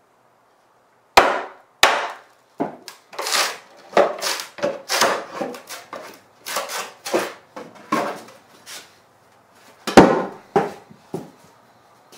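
A mallet strikes a steel froe set in a western red cedar block, with sharp knocks about a second and two seconds in. Then comes a run of cracking and tearing as the froe is worked and the shake splits off along the grain. Near the end the mallet strikes the froe hard again to start the next split.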